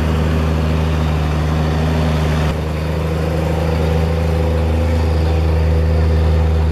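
Heavy log truck's diesel engine running at a steady pitch, with a brief dip in level about two and a half seconds in.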